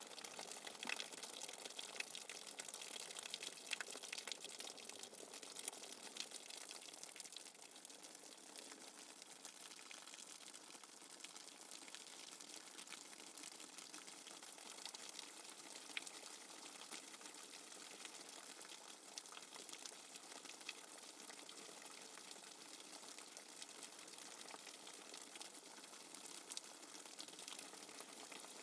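Rainwater dripping fast and hard: a dense, continuous patter of drops over a steady hiss of water, with a few louder splashes in the first few seconds.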